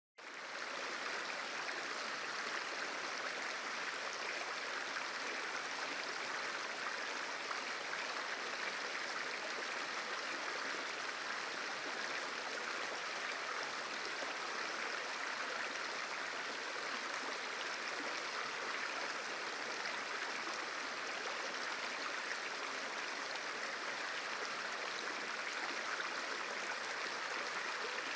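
Steady rush of water from a waterfall running full after heavy rain.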